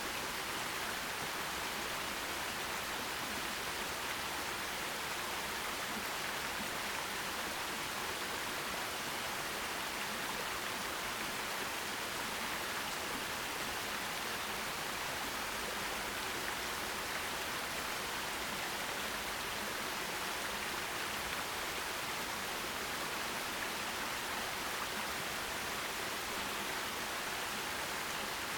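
Water of a forest stream running, a steady even hiss with no breaks or changes.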